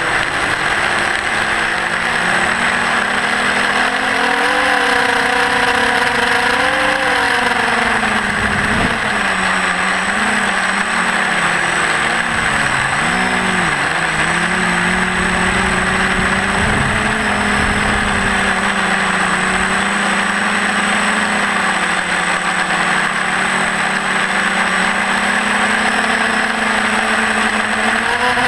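TBS Discovery FPV quadcopter's brushless motors and propellers whining in flight, the pitch rising and falling with the throttle, over a steady rushing hiss.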